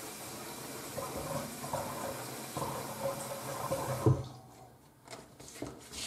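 Bathroom sink faucet running water into a slow-draining basin, shut off abruptly about four seconds in with a short knock.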